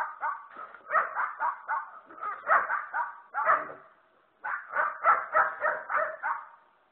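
Dogs barking rapidly, about three to four barks a second, in two runs with a short lull just before the middle of the stretch.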